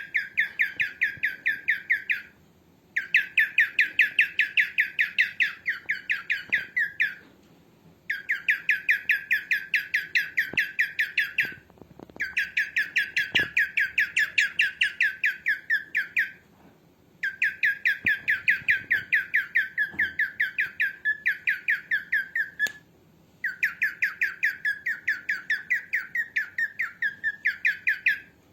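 Cockatiel calling in long runs of rapid, repeated chirps, about eight a second, in bouts of four to five seconds with short pauses between them.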